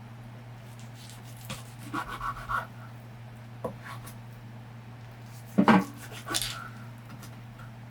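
Objects being handled at close range: scattered light knocks and rubbing, with a louder clatter about five and a half seconds in, over a steady low hum.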